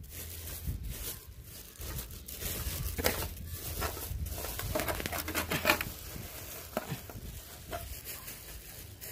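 Irregular rustling and crackling, with sharp clicks scattered through it, over a steady low rumble.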